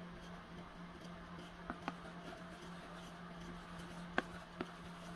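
Light clicks of a paint spoon and stirring stick knocking against a plastic tub of paint, two close pairs, one about a second and a half in and one near the end, over a steady low hum.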